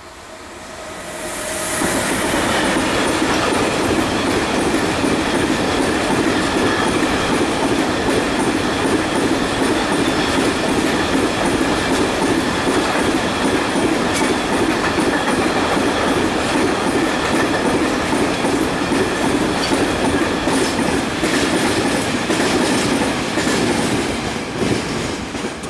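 Renfe class 253 electric locomotive passing at the head of a long container train, loud within about two seconds, followed by the steady run of the container wagons' wheels on the rails with clickety-clack and occasional clicks; the sound drops away near the end as the last wagon goes by.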